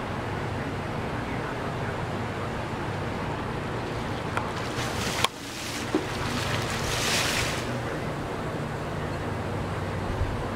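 Steady low hum of waterfront ambience, with two brief rushes of splashing water a little past the middle, the second lasting about a second.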